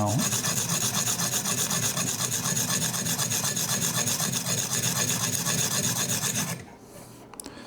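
Sharpening stone rasping back and forth along a knife edge on a TSProf Kadet guided sharpener, the stone wet with 3-in-1 oil. The rasping runs steadily and stops about six and a half seconds in, followed by a few faint clicks.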